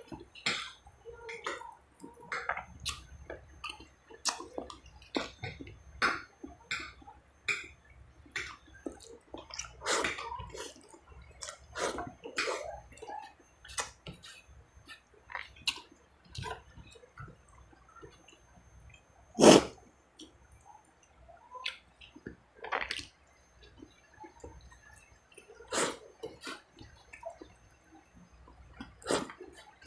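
Close-up mouth sounds of a man eating rice and beef rib meat with his hands: irregular wet smacks and clicks of chewing, with one louder smack about two-thirds of the way through.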